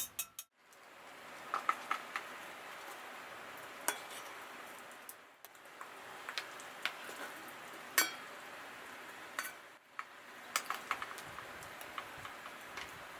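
Food sizzling in a metal sierra cup, a steady hiss with scattered light clicks and clinks of a utensil against the cup. The sound drops out briefly a few times where the shots change.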